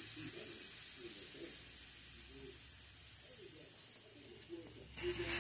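Air hissing out of a car tire's open valve stem, its valve core removed so the tire deflates. The hiss slowly fades, then about five seconds in a much louder rush of air starts.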